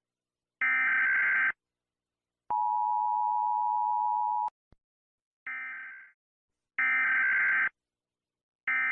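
Emergency Alert System tones: a screechy digital data burst, a steady attention tone held for about two seconds, then three more data bursts just under a second each, the last one cut off.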